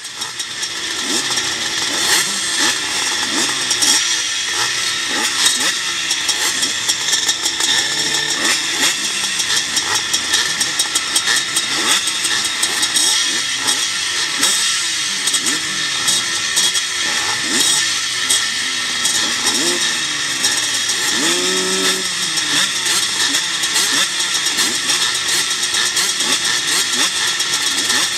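A field of vintage motocross bikes running together at the starting gate, several engines revving and blipping up and down over each other.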